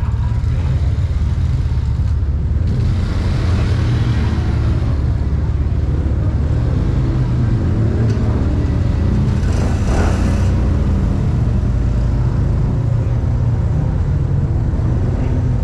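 Polaris RZR 800S side-by-side's twin-cylinder engine idling with a steady low rumble. About ten seconds in, a four-wheeler passes close, its engine briefly rising and falling.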